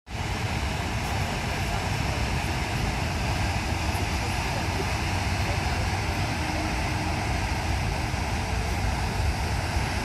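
Steady roar of the Lower Düden waterfall, a large river falling off a sea cliff straight into the sea.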